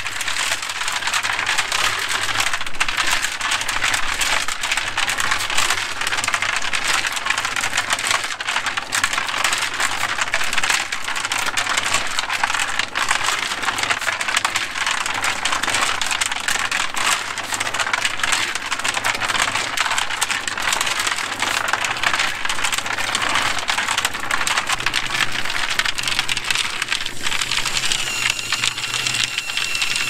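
Electric cement mixer turning, with gravel and stone tumbling inside the steel drum as a loud, steady, dense rattle over the low hum of the motor. Near the end a hose nozzle sprays water into the drum, adding a hiss and a steady high whistle.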